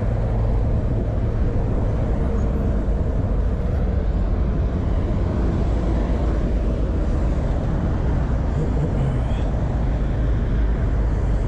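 Steady rush of traffic from a busy road alongside, mixed with wind rushing on the microphone of a camera on a moving bicycle.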